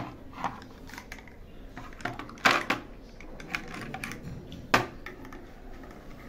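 12-gauge shotgun shells clicking and clinking as they are pushed together by hand on a metal tray: irregular clicks, the two loudest about two and a half and nearly five seconds in.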